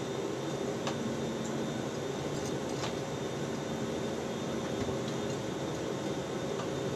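Steady hum and hiss of the International Space Station's cabin ventilation fans and equipment, with a few faint clicks.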